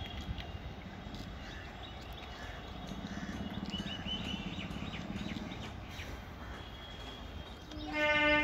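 Trackside outdoor ambience with birds chirping and a low distant rumble that swells and fades in the middle. Near the end a short, loud horn blast sounds, a single steady note, from the approaching train.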